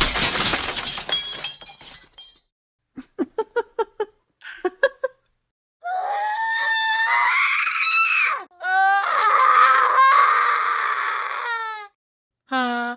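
A string of separate meme sound effects: a loud crash with a shattering tail that fades over about two seconds, a few short choppy voice-like sounds, then two long screams, the first rising in pitch and the second wavering.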